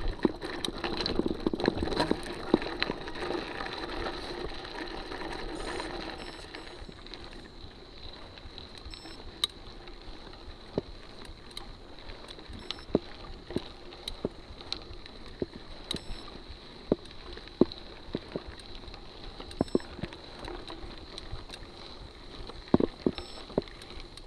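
Mountain bike rolling over a rough gravel dirt road: tyre crunch with sharp rattles and knocks from the bike over stones, heavier for the first few seconds, with a steady high whine underneath.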